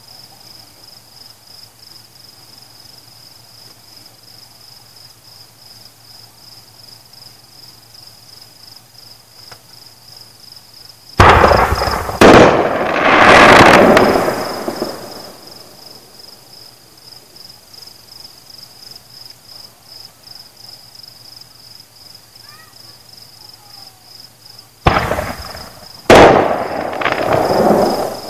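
Crickets chirping in a steady, evenly pulsing high trill, broken twice by volleys of fireworks exploding, the second near the end. Each volley is a sharp bang, a second bang about a second later, then a longer swelling blast that fades over a couple of seconds.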